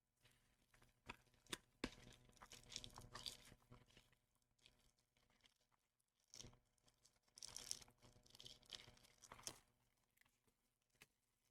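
Packaging of a Pokémon TCG booster box being torn open, with tearing and crinkling and sharp little clicks, in two bouts with a pause between.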